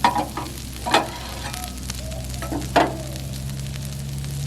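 Ground beef sizzling on a Blackstone griddle, with a spatula knocking sharply against the griddle top three times as the meat is stirred.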